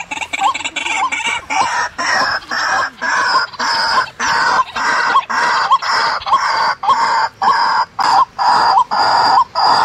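White-breasted waterhen calling: a short harsh croak repeated steadily, about twice a second.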